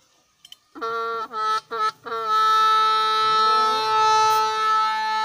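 Hmong raj, a long bamboo pipe, played solo. After a short pause for breath, a few brief notes come in quick succession, then about two seconds in it settles into one long held note.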